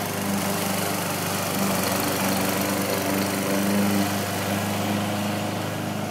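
Petrol walk-behind rotary lawn mower running steadily while cutting grass, its engine note holding even.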